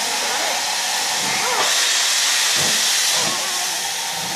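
LMS Black 5 4-6-0 steam locomotive pulling away with a train: a loud, steady hiss of escaping steam, with a few uneven low exhaust chuffs about a second apart.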